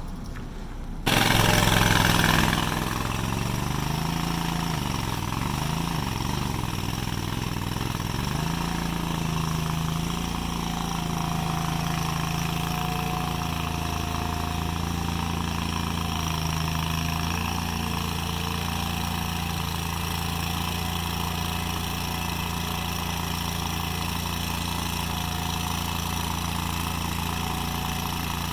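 An engine starts up about a second in. It runs with its speed rising and falling for several seconds, then settles into a steady run.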